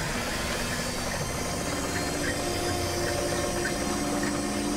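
Boat deck machinery running steadily, a droning hum with a few faint short squeaks scattered through it.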